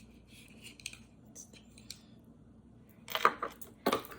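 Rustling and handling of packaging, then two sharp clacks in the last second or so as the hair dryer's attachments are taken out and set down.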